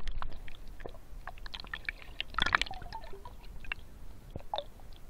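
Muffled underwater sound through a submerged action-camera housing: scattered small clicks, bubble pops and gurgles of moving water, with a denser cluster of ticks about two and a half seconds in.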